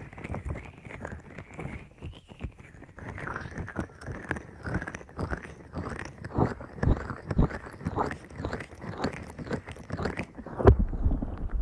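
Hands covering and tapping on a binaural microphone's ears, close-up: muffled scratchy rubbing with quick, irregular taps. Near the end it changes to a deeper, louder muffled rumble.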